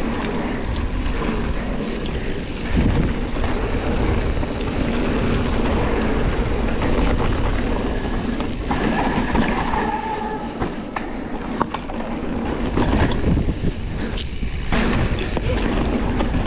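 Mountain bike riding fast down a dirt downhill trail, heard from a GoPro on the bike or rider: tyres rumbling over the dirt and the frame and chain rattling and clattering over bumps, with a short squeal near the middle.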